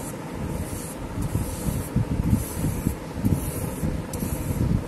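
Flat paintbrush stroked back and forth across a painting's surface while applying varnish, giving an irregular rubbing, brushing sound.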